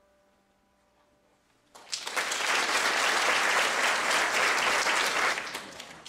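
Audience applauding in a theatre hall, starting suddenly about two seconds in after a short hush and tailing off near the end.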